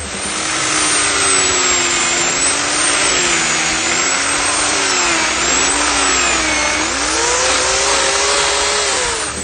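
Harbor Freight Bauer electric chainsaw cutting wood. Its motor whine wavers up and down in pitch as the load changes, over a steady rasp of chain through the wood.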